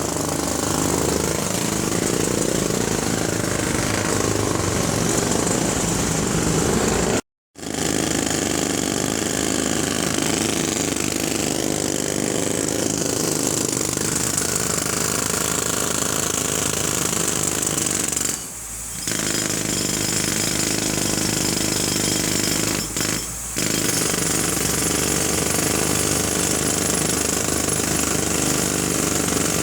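Jackhammer hammering continuously and loudly. It cuts out to silence for a split second about seven seconds in and eases off briefly twice later on.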